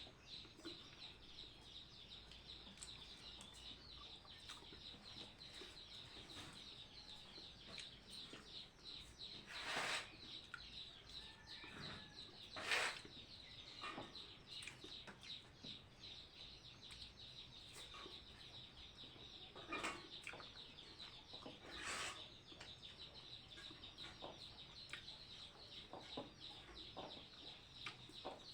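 Chickens clucking, faint, with a few louder calls now and then, over a steady high-pitched chirring.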